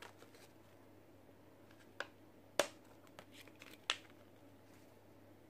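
Faint crinkling of plastic seasoning sachets being squeezed and torn open over an instant-noodle cup, with three short sharp crackles about two, two and a half and four seconds in.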